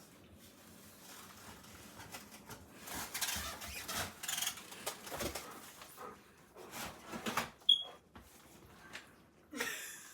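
A smoke alarm chirps once, a short high-pitched beep about three-quarters of the way through. Around it are bursts of rustling and shuffling from people moving about.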